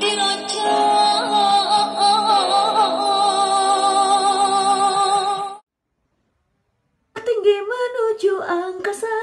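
A woman singing a long held note with vibrato over a full band backing, which cuts off abruptly after about five and a half seconds. After a short silence, a woman's voice starts singing unaccompanied.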